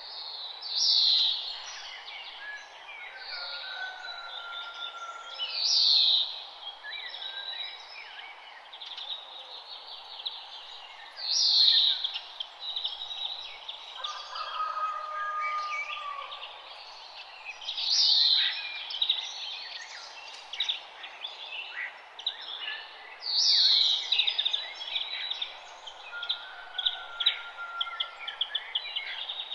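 Several songbirds singing and chirping together, one loud song phrase recurring about every five to six seconds among many quicker chirps and trills, over a steady background hiss.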